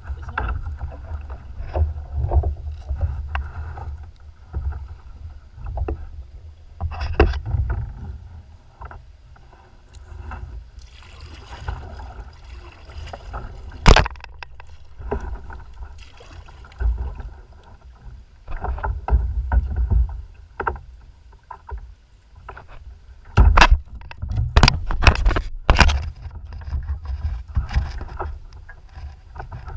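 Choppy lake water splashing and slapping against a kayak's hull, with wind rumbling on the microphone. Several sharp knocks sound against the boat, one about halfway through and a quick cluster of three or four near the end.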